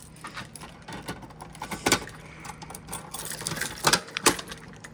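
A bunch of keys jangling and clinking as they are handled, with scattered sharp clinks, the strongest about two seconds in and two close together near the end.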